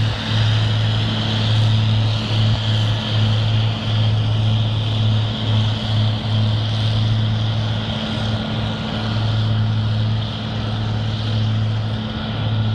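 Heavy diesel engines of airport runway snow-clearing machines, a rotary snow blower and a runway sweeper, running in a steady low drone with a constant hiss over it.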